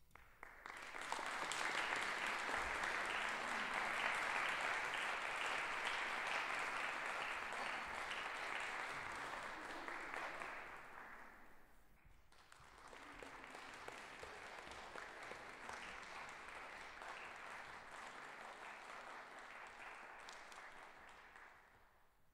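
Concert-hall audience applauding a percussion performance: a loud round of clapping that fades about eleven seconds in, then a second, quieter round that dies away near the end.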